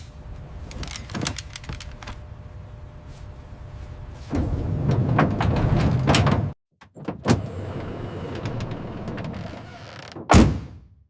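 Boxes being moved and stacked: a rumbling slide with clicks and knocks, louder for a couple of seconds before it stops abruptly, then one heavy thud near the end.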